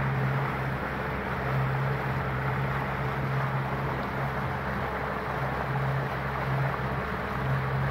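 Boat's outboard motor running as the boat cruises, a low hum that swells and fades every second or so over a steady rushing noise of wind and water.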